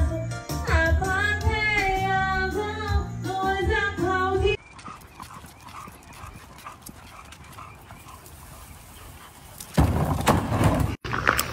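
A woman singing into a microphone over backing music, cut off abruptly about four and a half seconds in. Then several seconds of faint background sound, and near the end a loud, rough burst of noise lasting about a second.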